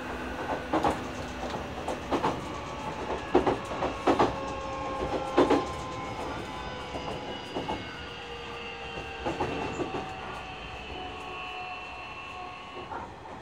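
Nishitetsu 9000 series electric train heard from inside the car: wheels clacking over rail joints, with the whine of its Toshiba hybrid-SiC IGBT-VVVF inverter and totally enclosed induction traction motors. The tones slowly fall in pitch and the sound eases as the train slows.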